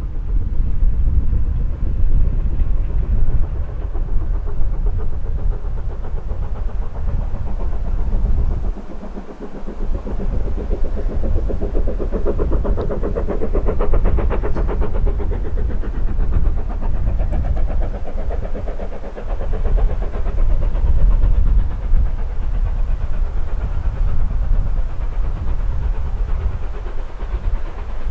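Wind rumbling on the microphone, with a distant engine swelling up in the middle and fading again.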